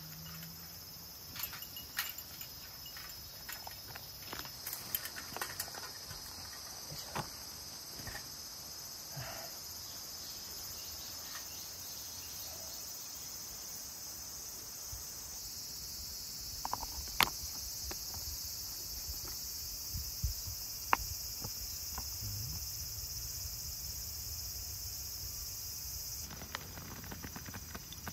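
A steady, high-pitched chorus of insects, with scattered light clicks and taps throughout.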